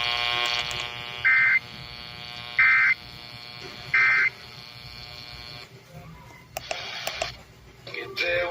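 Emergency Alert System end-of-message tones from a weather radio broadcast: a buzzy tone stops about a second in, then three short, loud, buzzy data bursts follow, a little over a second apart. Some faint clicks follow near the end.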